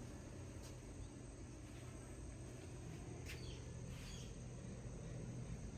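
Mangrove evening ambience: a few short bird chirps over a steady high insect drone, with a low rumble underneath.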